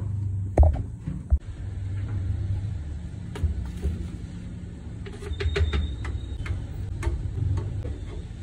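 Scattered light clicks and taps from handling drink-making utensils and a plastic blender jar, over a steady low hum.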